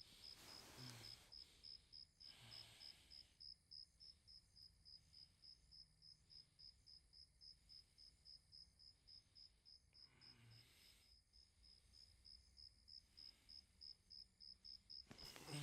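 Crickets chirping in a steady, even rhythm of about four high chirps a second.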